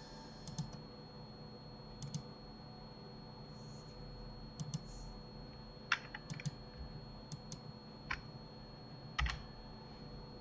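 Sparse computer keyboard keystrokes and mouse clicks, about a dozen short sharp clicks spread over several seconds, some in quick pairs, over a faint steady hum.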